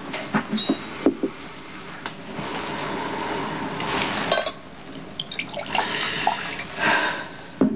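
Glassware clinking as a drink is poured from a crystal decanter into a glass, with a steady stretch of pouring in the middle and sharp clinks of glass on glass before and after.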